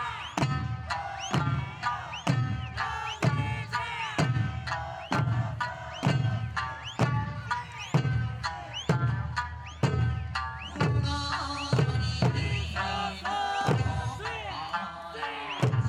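Music with a steady bass drum beat, a little under two beats a second, and a melody over it.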